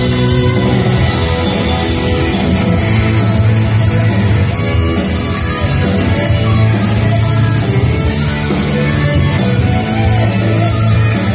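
Live rock band playing loudly, with a Les Paul-style electric guitar to the fore over bass and drums.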